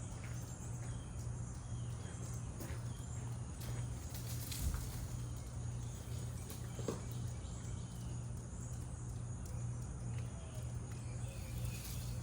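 Birds chirping faintly over a steady low hum, with a few light clicks.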